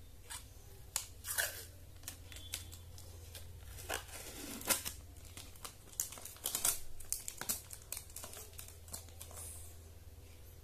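Plastic packaging crinkling and rustling in the hands, with irregular clicks and knocks from a plastic power bank being handled and turned over; the busiest stretches come about a second in and again around the middle.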